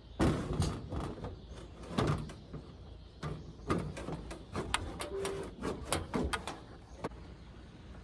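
Irregular knocks, clicks and rustles of hands handling things inside a plastic RV utility hatch set into a camper wall, with a run of sharper clicks in the second half.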